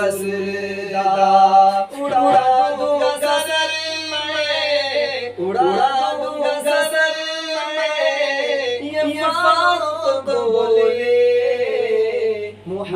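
A man singing an Urdu naat, an Islamic devotional hymn, unaccompanied, holding long, ornamented, wavering notes.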